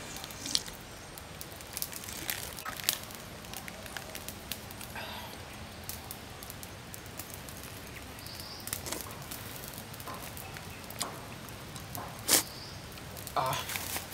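Small twig fire crackling with scattered snaps, one louder snap near the end, and a few soft swallowing sounds from drinking coconut water.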